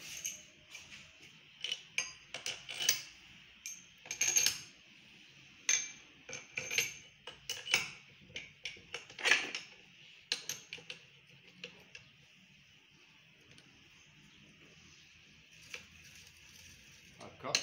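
Small metal parts clinking and tapping as fasteners are fitted by hand on an engine's cylinder head. The clinks come quickly for the first ten seconds or so, then only a few.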